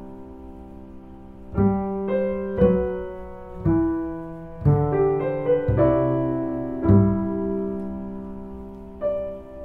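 Slow solo piano music: chords struck roughly once a second, each left to ring and fade away. The first chord enters about a second and a half in.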